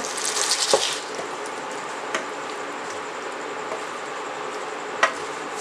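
Beef liver masala in a hot steel pan sizzles and crackles sharply for about a second as the water goes in, then settles to a steady simmering sizzle while a wooden spoon stirs, knocking the pan three times.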